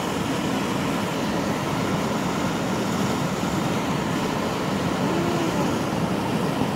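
Steady rushing of tidal rapids: fast current pouring over a standing wave and breaking into whitewater.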